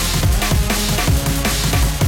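Fast electronic music with a driving drum beat and a deep, sustained bass line.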